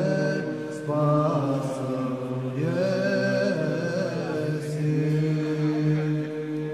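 Orthodox Epiphany chanting by voices, a low note held steady beneath a slow melody that rises and falls.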